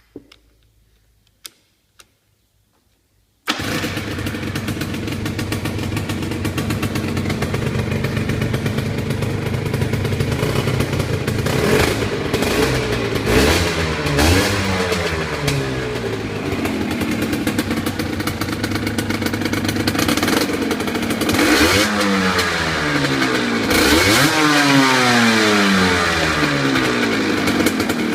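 A Cagiva Freccia's 125 cc two-stroke single-cylinder engine starting suddenly about three and a half seconds in, after a few faint clicks. It then idles while the throttle is blipped several times, the pitch rising and falling.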